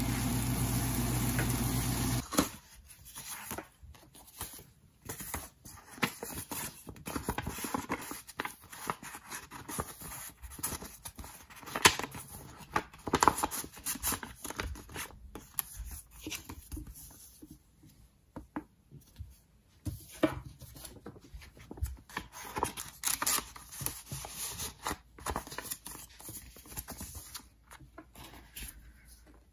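A pan of fried rice and vegetables sizzling, cut off suddenly about two seconds in. Then paper is handled by hand on a desk: a card and envelopes rustle, slide and tap, with many small sharp crinkles and clicks.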